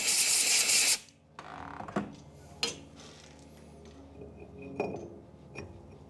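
A loud hiss lasting about a second, then scattered metal clicks and knocks with a brief ringing clink, as a gloved hand handles the chuck and workpiece on a milling-machine dividing head.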